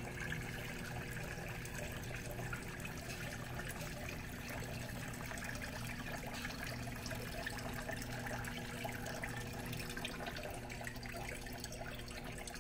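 Small pump-fed terrarium waterfall, water trickling steadily from cup to cup down a spray-foam rockface.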